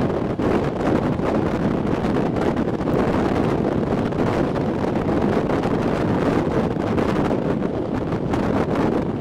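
Wind rushing over the microphone at the open window of a moving passenger train, mixed with the steady running noise of the train on the rails.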